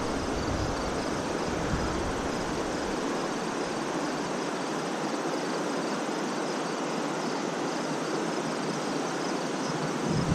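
Insects chirping in a steady, even rhythm over a constant outdoor hiss.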